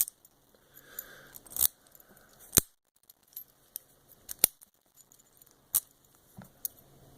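Sharp metallic clicks and clinks, about five loud ones with smaller ticks between, as a Best SFIC padlock is handled.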